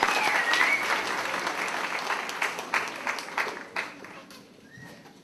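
Audience applause, dense clapping that thins out and dies away about four seconds in.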